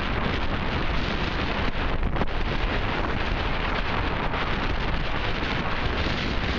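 Strong wind buffeting the microphone on a sailing yacht's deck, with the rush of the hull through rough sea beneath it. It is a steady, loud, even noise with no pauses.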